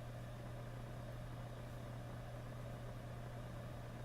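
Steady low electrical hum with a hiss, unchanging throughout, picked up on a microphone line.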